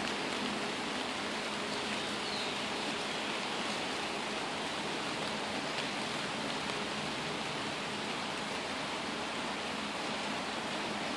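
Steady rain falling on trees: a dense, even hiss of drops on leaves, with a few faint individual drop ticks.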